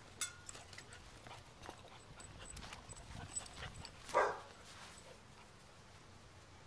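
Footsteps and small taps on grass, with one short yelp from a basset hound puppy about four seconds in.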